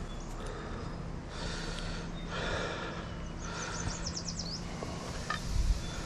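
A man breathing hard close to the microphone, short breaths about once a second. A quick run of small clicks comes a little past the middle, and a low bump near the end.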